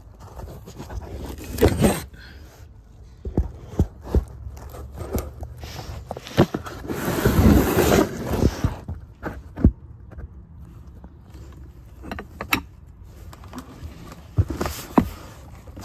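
Hand tools and sockets clinking, knocking and scraping on metal while working the harmonic balancer bolt, with a longer rough scraping noise a little past the middle.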